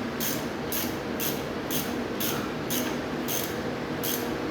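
Hand ratchet with an 18 mm socket clicking in even back-and-forth strokes, a little under two a second, as the nut on a front shock absorber mount is run down.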